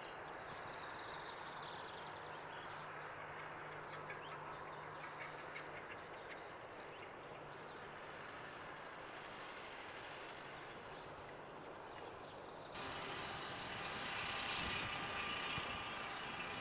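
John Deere 6105R tractor's four-cylinder diesel running steadily while it drives a fertilizer spreader, heard faintly at a distance with a low steady hum. About 13 seconds in the sound abruptly becomes louder and brighter.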